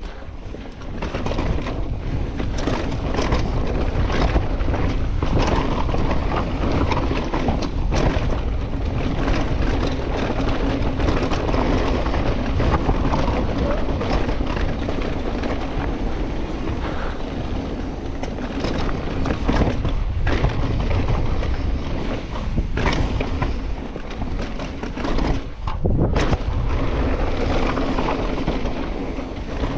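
Mountain bike descending a dirt singletrack: steady tyre noise on the dirt, with many small knocks and rattles from the bike over bumps and a short lull about 26 seconds in.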